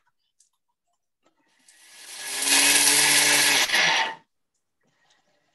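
Thermomix food processor running its blade at high speed for about three seconds. It builds up over about a second, holds steady, then cuts off, with the motor's pitch falling as it winds down.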